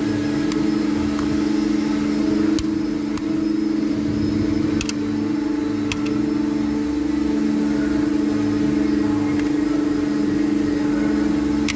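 Felder CF 731 combination woodworking machine running: its electric motors and spinning cutters give a loud, steady hum, with a few sharp clicks over it.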